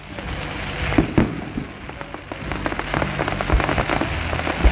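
Dense crackling and popping over a steady hiss, with several louder bangs: two close together about a second in, another past the middle, one at the end.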